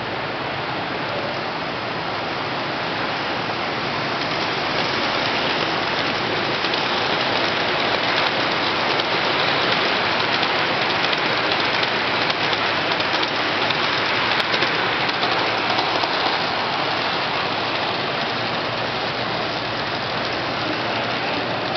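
Wheels of a large-scale garden-railway model freight train rolling along the track, a steady rushing clatter that grows a little louder through the middle as the cars pass close by.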